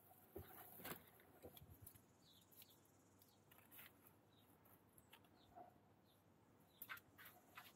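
Faint, scattered rustling and crinkling of sheer mesh drawstring bags being handled, with brief clusters about a second in and again near the end.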